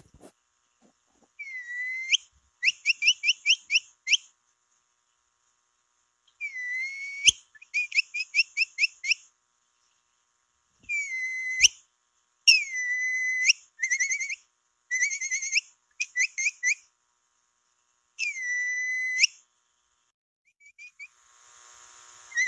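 Capybara lure call (piu): whistled phrases, each a note that rises and then holds for about half a second, followed by a quick run of six or seven short chirps. The phrase repeats about five times with short silent gaps.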